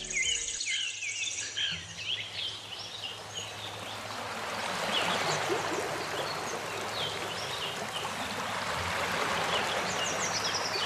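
Birds chirping, busiest in the first few seconds, over a steady rush of running water that grows louder about halfway through.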